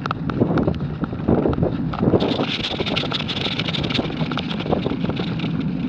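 Wind buffeting the microphone over mountain bike tyres rolling through dry fallen leaves, with many small clicks and knocks of the bike rattling on the rough trail. A steadier high hiss comes in about two seconds in.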